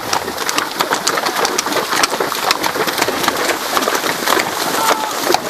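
Hooves of a group of horses walking on a stony lane: a dense, irregular patter of clops without a break.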